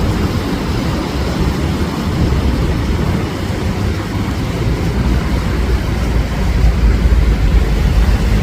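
Indian Ocean surf rushing and breaking on the shore in a steady low roar that swells louder toward the end.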